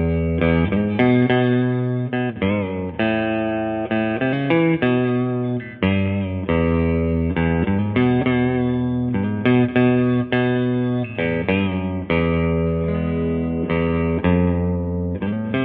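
Electric guitar playing a run of picked notes and chords through an amp, with its Lace Alumitone neck pickup split into single-coil mode, giving it some twang.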